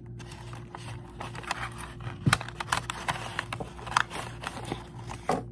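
Folded paper being handled and pushed together, with irregular crinkling, rustling and small scraping clicks as paper flaps are worked to close a paper box; the flaps resist because they have not been creased.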